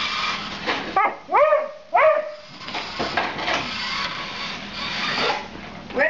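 Beagle barking at a remote-control truck: three loud, rising-then-falling barks in quick succession about a second in, with a few fainter ones later.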